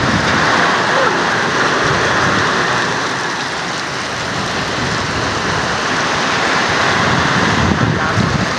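Typhoon rain pouring down steadily as a dense, even hiss.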